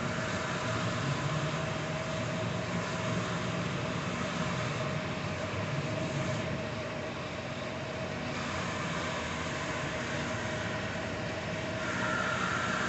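Hyd-Mech S-20 horizontal bandsaw running, a steady mechanical hum with a constant whine; a higher whine joins near the end.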